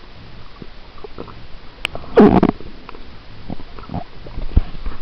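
Muffled underwater sound picked up by a submerged camera: a low rumble with scattered clicks and knocks, and a louder burst of noise lasting under half a second a little over two seconds in.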